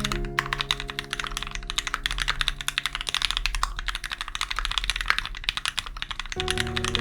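Fast typing on a Satisfaction75 custom mechanical keyboard with lubed Turquoise Tealios 67g linear switches on a brass plate, under GMK keycaps: a dense run of many keystrokes a second. Soft background music with held notes plays underneath, swelling again near the end.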